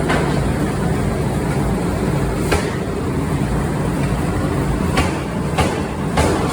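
Forging-shop machinery running with a steady low drone, struck through by sharp impacts: one at the start, one about halfway, then three closer together near the end, as steel billets are forged into bearing rings.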